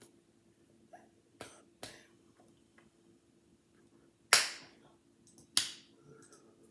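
A person's hands clapping and slapping together as they sign, a few sharp smacks at uneven intervals, the two loudest about four and a half and five and a half seconds in.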